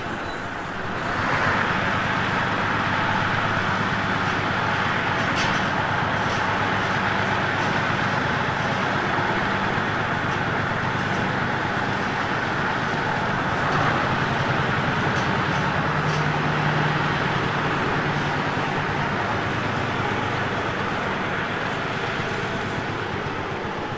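Small shunting locomotive working as it propels a carriage slowly into the shed, with a steady engine note. The note grows louder about a second in, shifts in pitch midway and eases off near the end.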